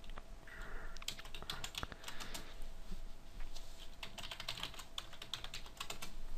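Typing on a computer keyboard: quick runs of key clicks.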